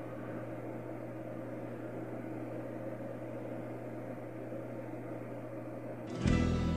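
Steady background hum and hiss with no other events, then acoustic guitar music starts abruptly about six seconds in.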